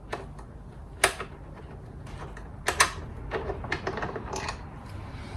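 Metal clicks and clinks of a 6 mm Allen key working a grab-handle bolt loose and the bolt coming out. Sharp clicks come about a second in and twice near three seconds, followed by a run of lighter ticks.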